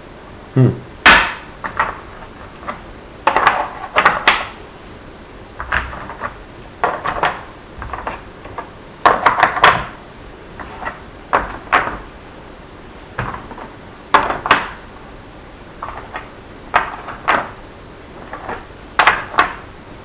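Small blocks being picked up and dropped one after another into the cut-out slots of a formboard: a string of sharp clicks and knocks at an uneven pace, often several in quick succession.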